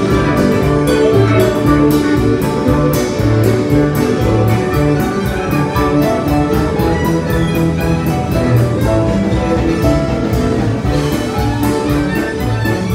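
Live country-rock band playing an instrumental passage: fiddle, electric guitars and pedal steel guitar over a drum kit keeping a steady beat.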